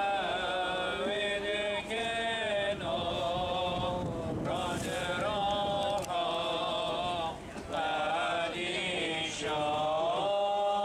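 Male voice singing a slow Arabic Christian hymn in long, wavering held notes, phrase after phrase, with no clear words.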